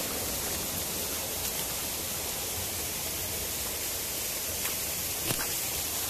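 Steady rush of flowing water, an even noise with no let-up, with two faint clicks near the end.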